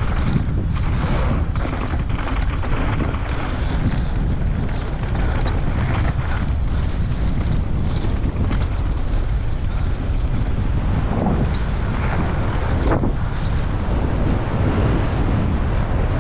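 Wind buffeting the microphone during a fast mountain bike descent on a dry trail, over a steady low rumble from the ride, with a couple of sharp knocks from the bike about eight and a half and thirteen seconds in.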